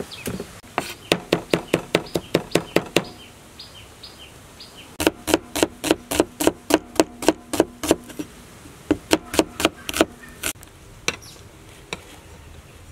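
Kitchen knife chopping on a wooden cutting board in quick runs of even chops, about five or six a second, with pauses between the runs; the longest run is the knife slicing red onion.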